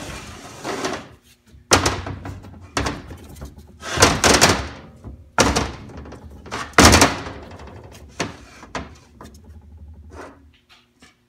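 Metal tools and transmission parts knocking and clattering on a workbench, a series of sharp clanks and thuds after a short hiss at the start, with lighter clicks near the end.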